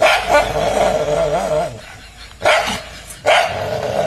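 A dog barking, in three loud outbursts: one at the start, then two more about two and a half and three and a quarter seconds in.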